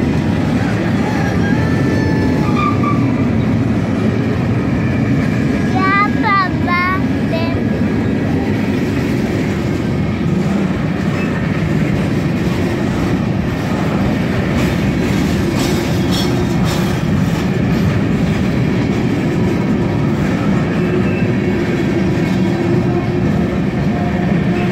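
Ferromex freight train's gondola cars rolling past, a steady rumble of steel wheels on the rails. A short run of high chirps comes about six seconds in.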